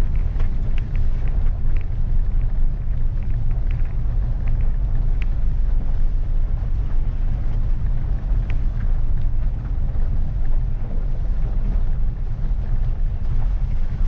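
Maruti Suzuki Ignis driving slowly in first gear on a wet, rough road, heard from inside the cabin: a steady low rumble of engine and tyres, with scattered light ticks over it.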